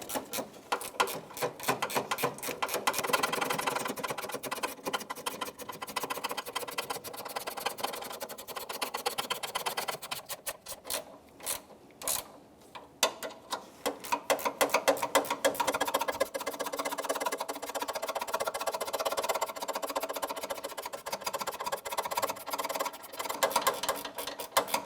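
Ratchet wrench clicking in quick runs as the hood latch's 10mm mounting bolts are run down snug, pausing briefly about halfway through.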